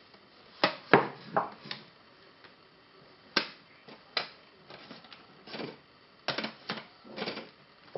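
A plastic toy being handled, giving irregular clicks and knocks, about a dozen in all and loudest around a second in.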